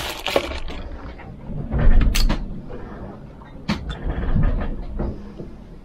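A few scattered knocks and clicks of things being handled and a cabin locker being shut aboard a sailboat. Under them runs a low rumble that swells about two seconds in, from the boat underway in a heavy sea.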